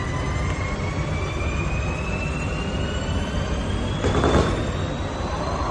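Festival fireworks: a long whistle rising slowly in pitch, with a sharp bang about four seconds in, over a steady low rumble.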